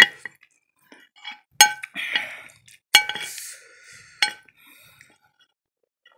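Metal fork clinking against a plate four times, each strike ringing briefly, with short scrapes in between as the noodles are gathered.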